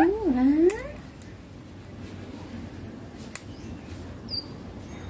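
Baby ringneck parrot calling: one wavering call in the first second that dips in pitch and rises again, then a single short high chirp near the end.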